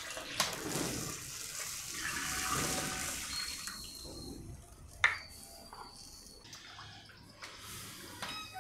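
Water poured from a plastic jug into a clay pot of simmering green rice broth, splashing steadily for about three and a half seconds. Then quieter stirring with a wooden spoon, with one sharp knock about five seconds in.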